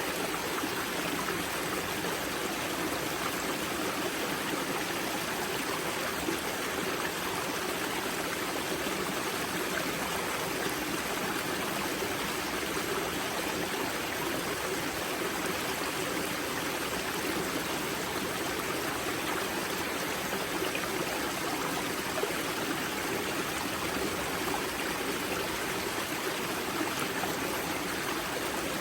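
A river at its spring running steadily over rocks: a continuous, even rushing and babbling of shallow water.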